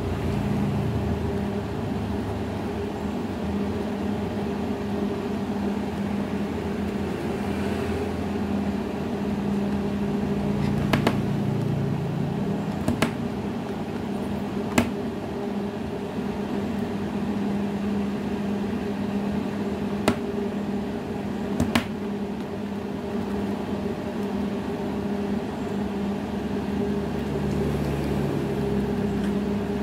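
Steady low machine hum, with a few sharp clicks scattered through the middle.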